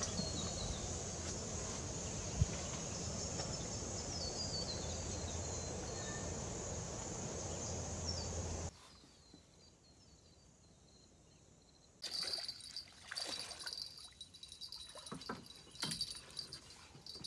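Wetland nature ambience: a steady high insect buzz with short falling bird-call phrases. It cuts abruptly to a quieter stretch about nine seconds in. About twelve seconds in it jumps to a louder scene with a high steady insect tone and scattered clicks and knocks.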